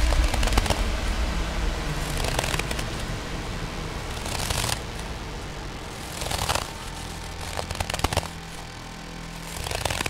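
Animated tortoise's heavy footsteps on ice: a crunchy, crackling step about every two seconds over a steady noisy background.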